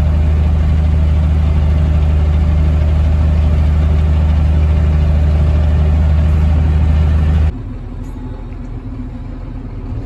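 Tractor engine running steadily, heard inside the cab as a deep, even drone. About seven and a half seconds in it drops suddenly to a quieter, steady engine idle.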